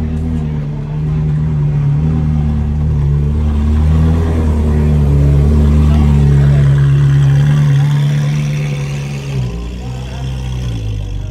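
Ferrari 458 Italia's naturally aspirated V8 running at low revs as the car pulls slowly past and away. The note grows louder as the car passes, then drops lower and fades near the end.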